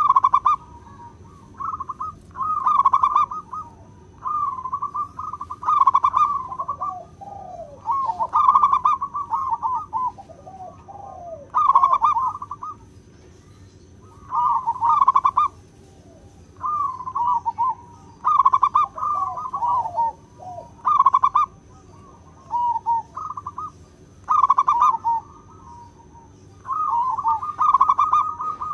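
Zebra dove cooing: short bursts of rapid, trilled coos recurring every second or two, with lower gliding notes between some of them.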